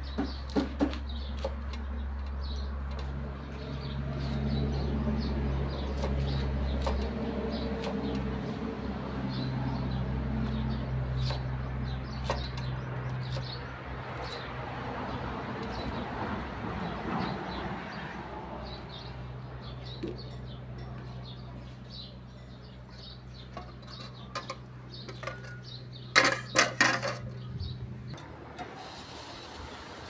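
Birds chirping over a steady low hum, which cuts off near the end, where a few loud sharp knocks sound.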